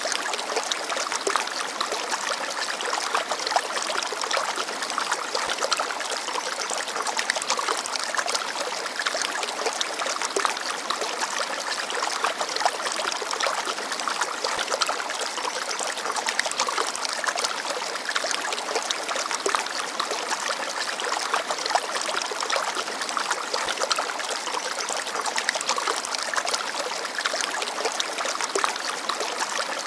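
Small forest stream babbling and trickling over rocks, a steady splashing with many small gurgles.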